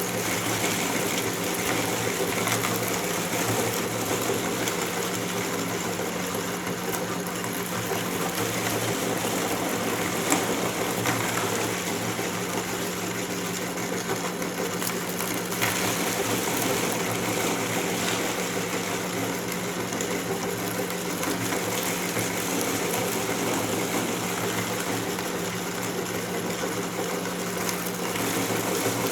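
Electric meat grinder motor running steadily with a constant hum, popcorn crunching and crackling as it is ground.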